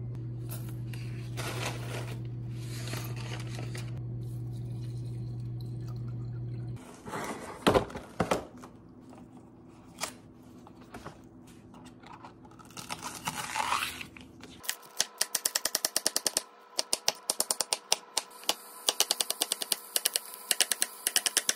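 A steady low hum, then a few knocks and handling sounds, then a kitchen knife chopping green onions on a wooden cutting board in quick, even strokes through the last third.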